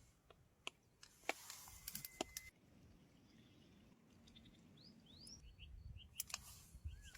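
Faint bird chirping: a couple of quick rising calls, then a run of short repeated chirps in the second half. A few soft clicks and a brief rustle come in the first half.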